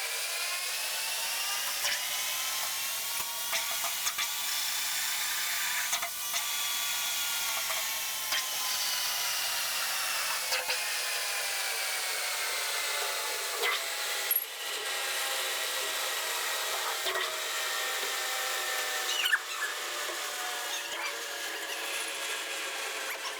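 Metal lathe running while machining a bolt: a steady whine that drifts slowly up and down in pitch, with scattered light clicks.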